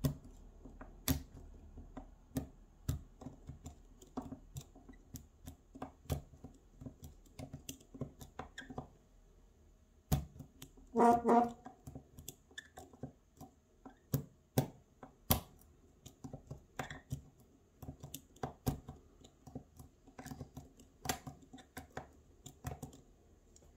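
Picking a Pollux 7 tubular lock: a pick and tension tool work the pins, giving many small, irregular metallic clicks and ticks. About eleven seconds in there is one brief louder pitched sound.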